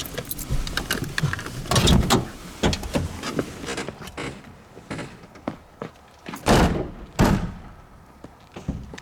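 Clunks, knocks and rustling of a car door being opened and shut, with two heavier thuds near the end.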